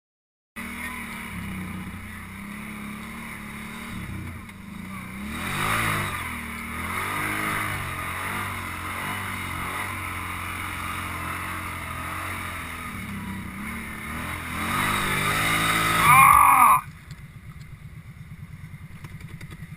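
ATV engine running under throttle, swelling in revs about five seconds in and again, loudest, near the end. It then cuts off suddenly to a quieter, evenly pulsing engine note.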